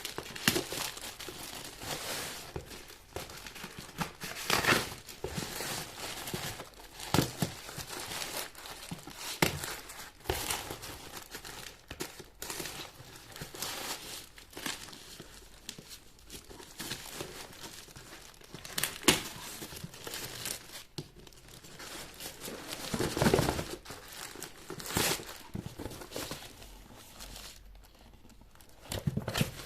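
Shoe packaging being handled and unwrapped: irregular crinkling rustles and crackles, with a louder stretch about three-quarters of the way through.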